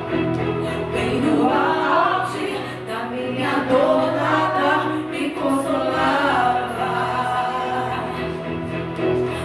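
Gospel song performed live: a sung melody over steady, sustained low accompaniment notes.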